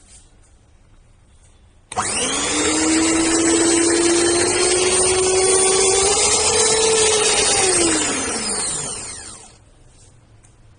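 Cornell CSM-8007HP 250 W stand mixer's electric motor starting abruptly and running with a whine that climbs slightly in pitch for about six seconds, then switched off and spinning down in falling pitch.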